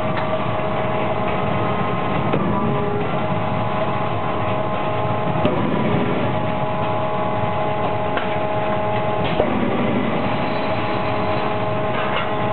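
Forging-line machinery running with a steady loud hum and several held tones, broken by a few light metal knocks.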